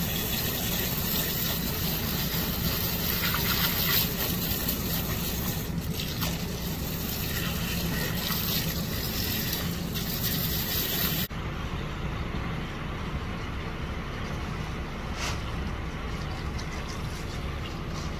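A jet of water from a hose spraying onto a freshly dug peanut plant, rinsing mud off the pods and roots: a loud, even spraying hiss that cuts off suddenly about eleven seconds in, after which a duller steady background noise remains.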